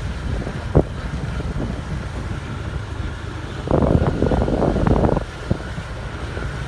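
A motorbike riding along a lane: a steady low engine rumble under wind noise on the microphone, with a louder rush of wind for about a second and a half in the middle.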